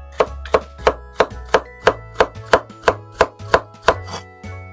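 Chef's knife slicing bitter melon (goya) into thin crescents on a wooden cutting board: an even run of sharp knocks, about three a second, each stroke striking the board.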